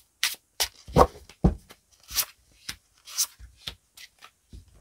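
Tarot cards being dealt from the deck and laid down on a cloth-covered table: a quick string of short snaps, taps and slides, about ten in all, the two heaviest thuds about a second in.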